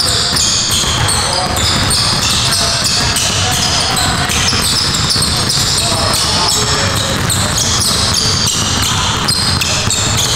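Several basketballs being dribbled at once on a gym floor: a dense, steady clatter of overlapping bounces.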